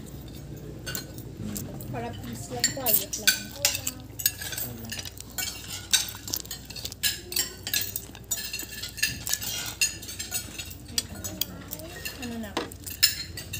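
Spoons and forks clinking and scraping on plates as several people eat, in a scatter of irregular sharp clinks.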